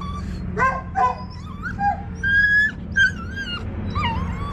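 Setter dog whimpering and whining in a string of short, high cries that rise and fall in pitch: a dog in pain while being given an injection under the skin.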